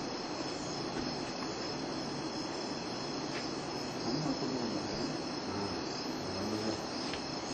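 Steady night chorus of crickets chirring, with faint, indistinct voices murmuring in the second half.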